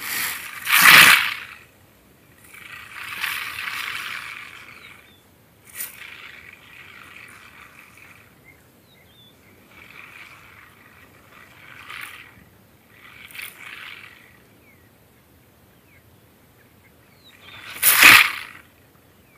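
Repeated short hissing, rasping bursts from a leopard and a crested porcupine in a standoff. The loudest come about a second in and near the end, as the leopard paws at the porcupine's quills.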